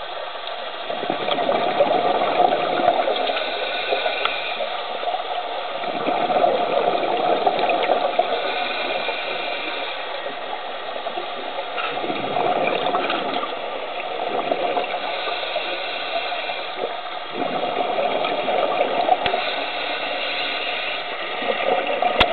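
Scuba diver breathing through a regulator underwater: a bubbling rush of exhaled air swells up four times, about every five or six seconds, over a steady watery hiss.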